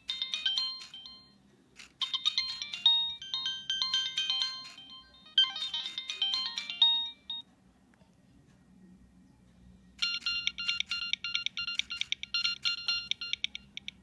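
Nokia 3586 mobile phone ringtones: a melody of short, high, beeping notes plays in phrases and ends about seven seconds in. After a pause of a couple of seconds, a different ringtone of quick repeated notes starts and runs for nearly four seconds.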